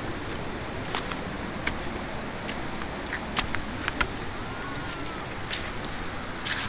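Creek-side ambience: a steady hiss of flowing water under a constant high insect buzz, with scattered light clicks and taps.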